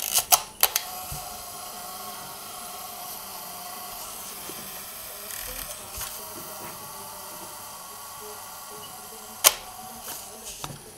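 Porst Uniflex TTL SLR camera: a few sharp clicks as the self-timer is set, then its clockwork self-timer whirring steadily for about nine seconds, ending in one loud shutter click.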